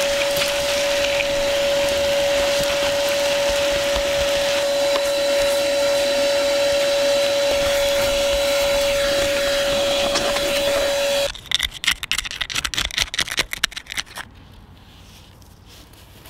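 A vacuum running with a steady, high whine as its hose nozzle sucks dirt and grit out of a crack in concrete. It cuts off suddenly about eleven seconds in, and a few seconds of scattered clicks and rattles follow.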